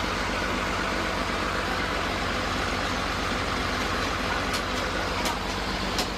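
A heavy engine running steadily with an even pulsing rumble, as at a sawmill's machinery, with a few sharp clicks near the end.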